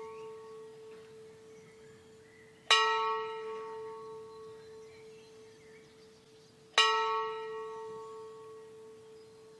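A single bell tolling slowly, struck twice about four seconds apart, each stroke ringing on and fading away.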